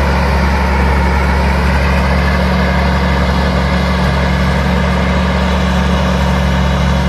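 Rice combine harvester running steadily as it cuts through standing rice: a continuous engine drone with a strong low hum.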